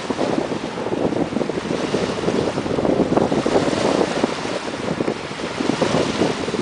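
Wind buffeting the microphone: a loud, uneven rush that rises and falls in gusts.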